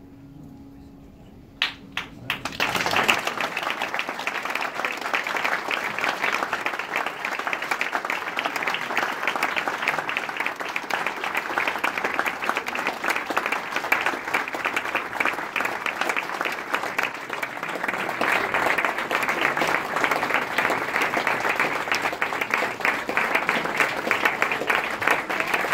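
The upright piano's last note dies away, a few single claps come in about two seconds in, and then the audience breaks into sustained applause.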